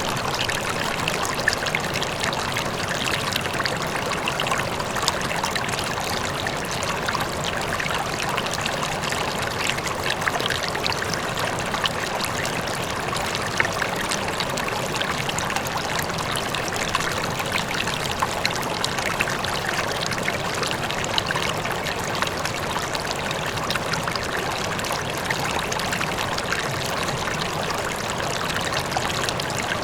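River water flowing steadily, with a waterfall faintly in the distance.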